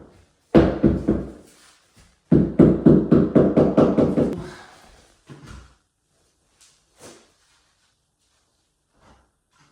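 A large tile being tapped down to bed it into its mortar: two quick runs of dull knocks, about five a second, the second run longer, then a few faint taps near the end.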